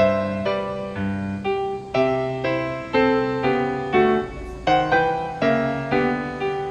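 Background piano music: notes and chords struck about once a second with lighter notes between, each dying away.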